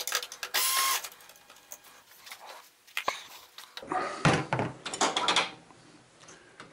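Metal parts of an LCD TV's chassis being handled during disassembly: a scrape with a short metallic ring in the first second, a few light clicks, then a cluster of clanks and knocks about four seconds in as a long metal bracket is lifted off.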